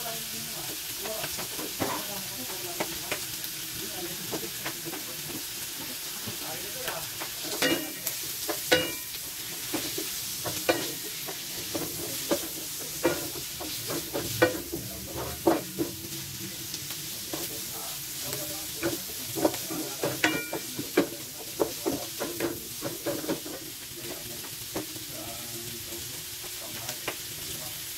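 Ground meat, onion and garlic sizzling in a wok while a wooden spatula stirs it, with frequent irregular knocks and scrapes of the spatula against the pan. The meat is being browned until cooked.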